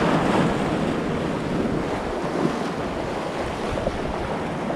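Sea surf washing over rocks at the water's edge, with wind buffeting the microphone.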